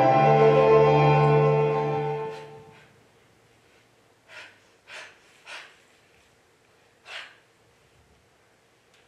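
Soft instrumental music of sustained, held chords fades out about three seconds in. Four short breathy exhalations follow in the quiet.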